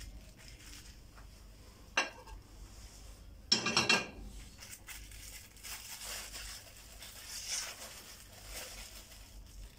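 Kitchen handling noise while marinated chicken is moved from a stainless steel mixing bowl onto a plastic bag: a sharp clink of the metal bowl about two seconds in, a louder crackle of plastic bag a second and a half later, then soft rustling.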